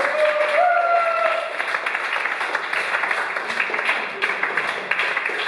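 A small group applauding by clapping their hands, with a voice calling out over it in the first second or so.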